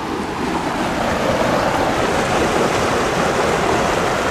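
Fast-flowing river water rushing steadily, growing louder over the first second and then holding level.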